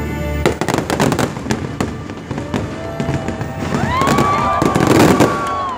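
Fireworks launching and bursting in rapid volleys of sharp bangs and crackles, loudest near the end. Long pitched tones rise and hold over the second half.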